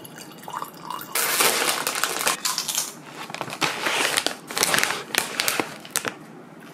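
Plastic potato-chip bag crinkling and crackling as it is handled close to the microphone. It comes in dense bursts starting about a second in and stops near the end.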